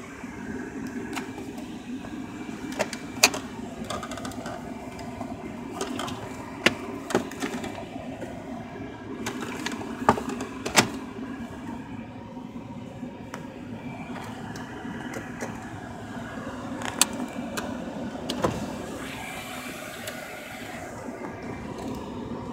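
Mercedes-Benz C280's engine idling, heard from inside the cabin as a steady low hum, with scattered sharp clicks and taps over it.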